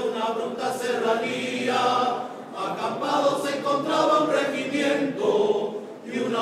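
Choir singing together, several voices in phrases with brief dips between them.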